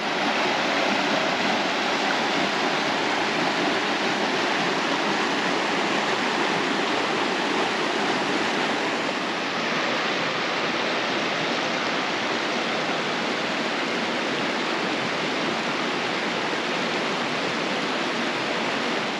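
Rushing water from a mountain stream or small waterfall, a steady, even rush that starts and stops abruptly.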